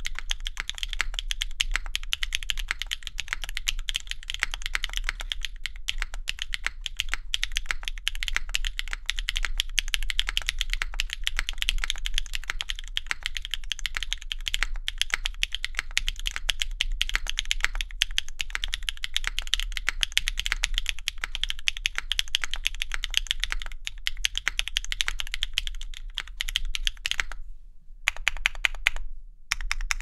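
Fast, continuous typing on a Neo70 mechanical keyboard fitted with stock BSUN Sarokeys Strawberry Wine V2 linear switches, GMK keycaps and a gasket-mounted aluminium plate with no foam. The key clacks come in a dense run, with a couple of brief pauses near the end.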